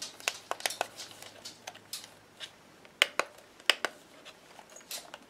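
Scattered plastic clicks and knocks from a toy RC quadcopter transmitter and its spring-loaded phone holder being handled, with the two sharpest clicks about three seconds and three and a half seconds in.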